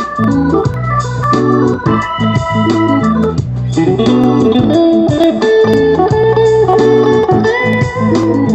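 A live band playing an instrumental passage: guitars with an organ-toned keyboard, in a steady rhythmic chord pattern.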